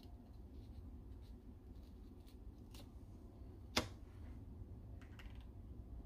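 Small magnets and a hot glue gun being handled at a workbench: a few faint clicks and taps, with one sharp click a little under four seconds in, over a low steady background hum.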